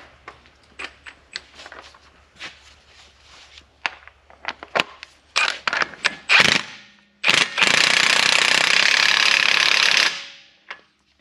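Light scattered clicks and knocks, then an impact wrench hammering the 34 mm front-hub axle nut tight: a few short bursts about five and a half seconds in, followed by one continuous run of about three seconds.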